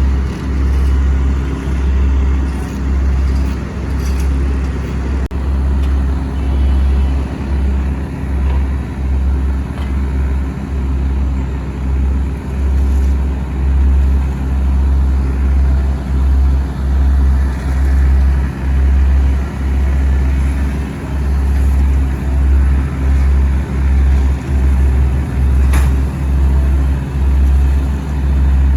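Diesel engines of asphalt paving machinery running steadily. A heavy low rumble throbs a little more than once a second.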